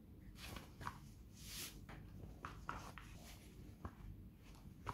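Faint handling noise as a folded gimbal is slid into its soft fabric drawstring pouch: cloth rustling, with a brief hissy rustle about a second and a half in, and a scatter of small clicks and taps.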